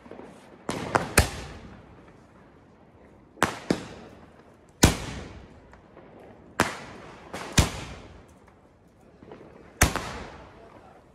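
Sky shot (multi-shot aerial firework) firing its shells one after another. Sharp bangs come every one to two seconds, several in quick pairs, and each trails off.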